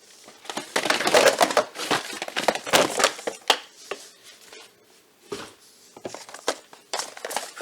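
Packaging crinkling and rustling as it is handled, dense for the first three seconds or so, then thinning to scattered rustles and clicks.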